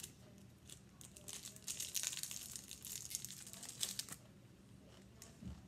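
Almond Joy's plastic candy-bar wrapper being torn open and crinkled in the hands, a run of crackly rustling that is busiest from about one and a half to four seconds in.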